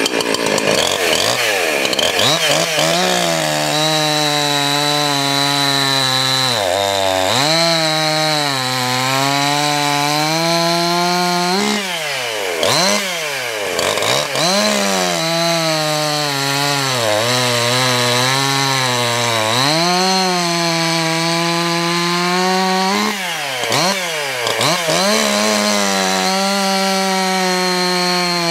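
Husqvarna 346XP two-stroke chainsaw with a modified muffler, running at full throttle through a log. Its pitch sags under load in the cut, and several times it drops sharply and climbs back.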